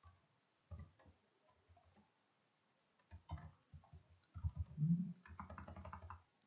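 Computer keyboard typing: irregular keystroke clicks with low thuds, sparse at first and then a quick, busy run of keys through the second half.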